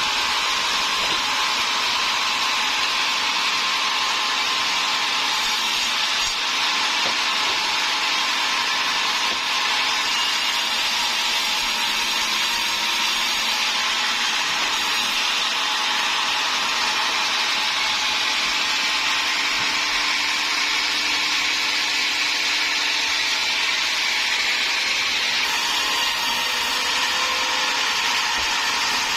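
Sawmill saw cutting through timber, a loud, steady sawing noise that runs on evenly without a break.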